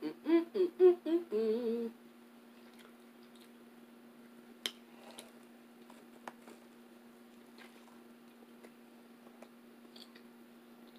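A woman humming a few short, bending notes and then one held note, stopping about two seconds in. Then quiet closed-mouth chewing of an injera wrap, with a few faint mouth clicks and a bite about six seconds in, over a steady low hum.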